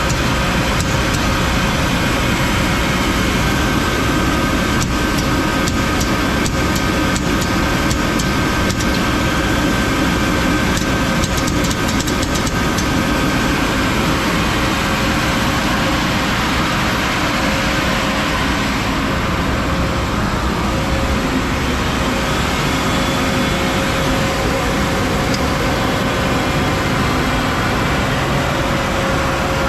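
A two-head 36-inch wide belt sander with an 18 kW main drive running under power, giving a loud, steady mechanical drone.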